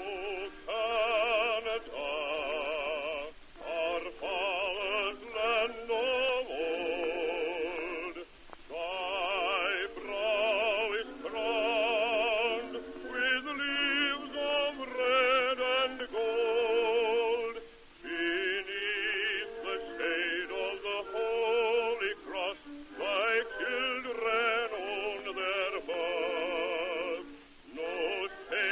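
Music with operatic singing, the voice held on long notes in a strong, wavering vibrato, in phrases broken by short pauses.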